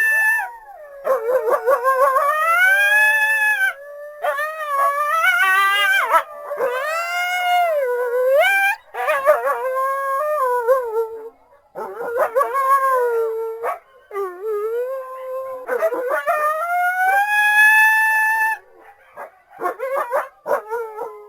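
A pack of coyotes howling together, several voices overlapping in long wavering howls that rise and fall in pitch, breaking into short yips near the end.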